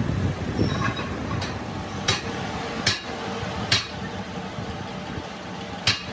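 Metal lathe running with a transmission shaft turning under the cutting tool, machining the shaft's repaired end, with a steady mechanical hum. Four sharp clicks cut through it, three less than a second apart in the middle and one near the end.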